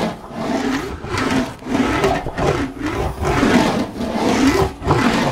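English wheel rolling a curved sheet-metal car panel back and forth at unchanged wheel pressure. Each pass gives a rubbing sound that swells and fades, about three passes every two seconds.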